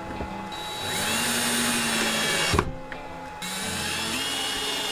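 Cordless drill driving mounting screws into wood, in two runs of about two seconds each; each run starts with a rising whine as the motor spins up, and the first ends with a sharp knock.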